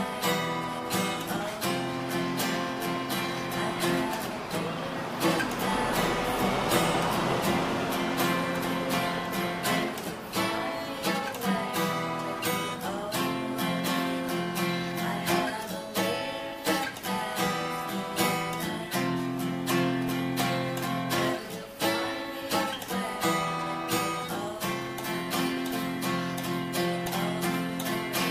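Acoustic guitar music, strummed chords with picked notes at a steady pace.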